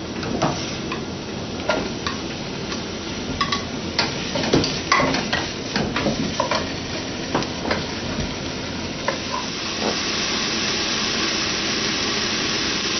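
Stir-frying in a nonstick pot: wooden chopsticks repeatedly tap and scrape against the pot as mushrooms and tofu are turned, over a steady sizzle. The taps thin out near the end, where the sizzle becomes an even, fuller hiss.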